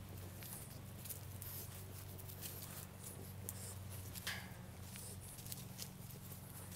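Puppies' paws pattering and rustling through dry leaves and sticks: scattered light clicks and crackles, a slightly louder rustle a little past the middle, over a steady low hum.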